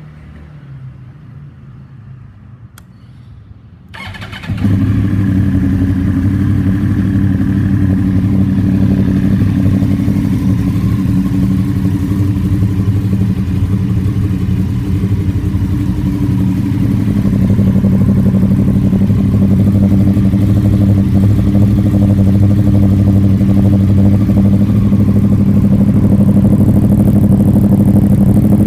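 A 2014 Yamaha YZF-R1's 998 cc crossplane inline-four fires up about four seconds in and settles into a steady idle through the exhaust, getting a little louder about two-thirds of the way through.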